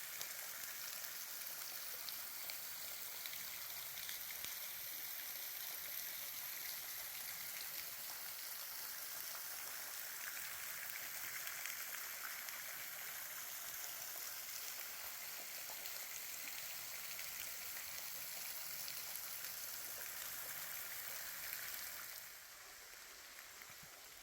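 Steady rain falling through the forest: an even hiss with many small drop ticks. It gets quieter shortly before the end.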